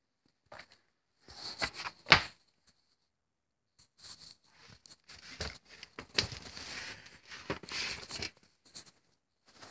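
Irregular rustling and scraping with a few sharp knocks, the loudest about two seconds in: handling noise as the recording phone is moved about and rubbed.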